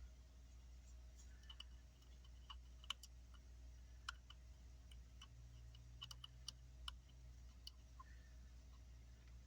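Faint, irregular small clicks and taps, about a dozen scattered through, from electronic components and hand tools being handled at a repair bench, over a low steady hum.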